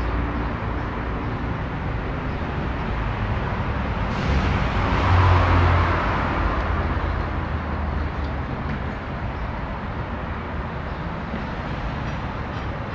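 Street traffic: a steady rumble of road vehicles, swelling as one louder vehicle passes about five seconds in, then fading back.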